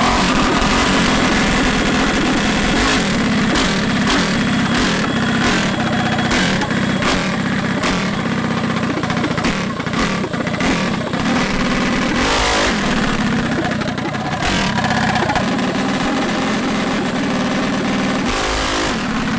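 A minibike's small single-cylinder engine running loudly and being revved, with the engine note dropping and changing about 12 seconds in and again near the end.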